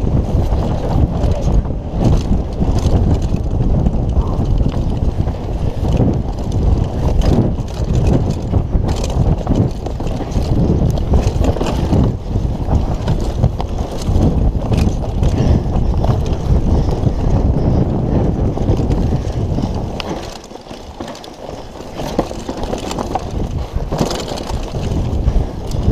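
Wind buffeting the camera microphone on a Kona Operator downhill mountain bike at race speed, with the tyres on dirt and many sharp knocks and rattles as the bike runs over rough ground. It eases for a couple of seconds about twenty seconds in, then picks up again.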